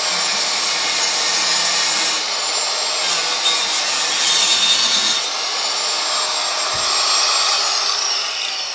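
Angle grinder's disc biting into rusty steel, a harsh continuous grinding over the motor's high whine, which sags under load and climbs again about five seconds in. Near the end the grinder is lifted off the metal and its whine falls as it winds down.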